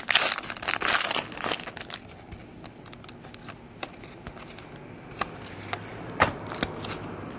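Foil wrapper of a 2008 Upper Deck Heroes football card pack crinkling for the first two seconds or so, then scattered light clicks and rustles as the cards are handled and flicked through.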